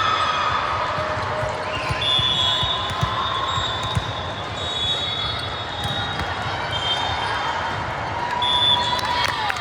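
Busy indoor volleyball gym: balls being struck and bouncing on the hard court floor, with crowd chatter and hall echo. Thin high squeals come and go several times over the top.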